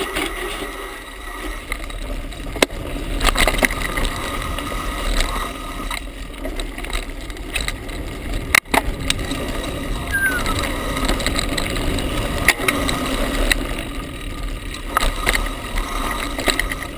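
Mountain bike riding fast down a dirt singletrack: tyres rolling over dirt and dry leaves, with the bike rattling and many sharp knocks over a steady low rumble.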